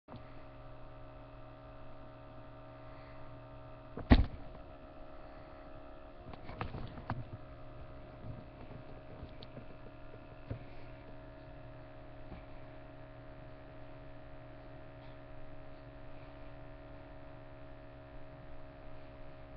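Steady electrical hum, several even tones held without change. A single loud, sharp knock about four seconds in, then a short run of smaller knocks and clatter a couple of seconds later and one click near the middle.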